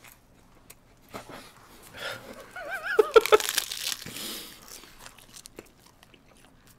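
Plastic film wrappers of convenience-store triangle kimbap crinkling and tearing as they are pulled open, in small rustles and clicks. About three seconds in, a man lets out a loud, wavering vocal sound lasting about a second.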